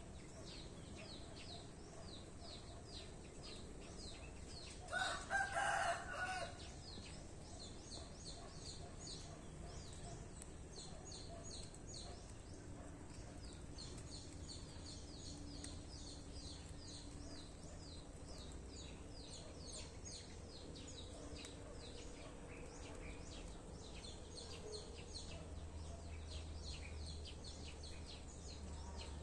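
A rooster crows once, about five seconds in, for a second and a half. Behind it runs a continual high, rapid chirping.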